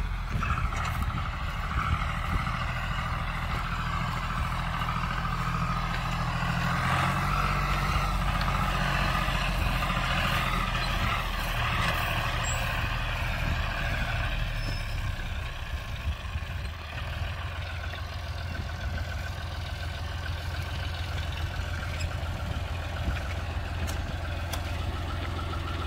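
Farm tractor's diesel engine running steadily as it pulls a fertilizer spreader across a field. Past the middle the higher part of the sound fades and the engine, now close by, settles into a steady low idle.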